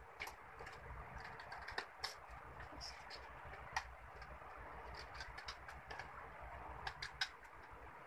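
Faint, irregular snips and clicks of small scissors cutting through printer paper, with the sheets rustling as they are handled.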